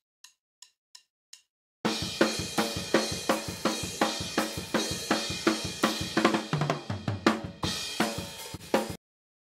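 Multitracked drum kit recording played back: four soft ticks, then the kit comes in about two seconds in, with strokes at about four a second, a short low tom passage near the end, and an abrupt stop. This is the 'before' version, with the snare close mic about 3 ms out of phase with the overhead mic, which leaves the snare thin with less low-end impact.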